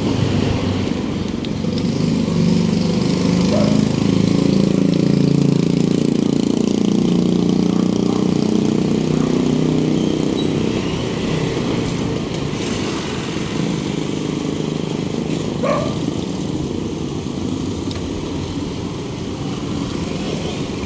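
Street traffic: a motor vehicle's engine running close by, loudest from about two to ten seconds in, then easing to a steady traffic rumble.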